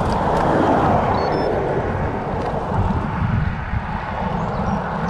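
Wind buffeting and road noise on a bike-mounted action camera's microphone as a road bike climbs a lane: a steady rumbling rush that swells briefly about a second in.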